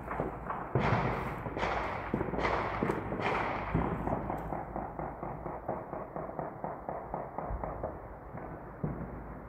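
Four loud bangs about a second apart, each followed by a long echo, then a steady patter of fainter, more distant pops and crackles: fireworks or gunshots going off across a city.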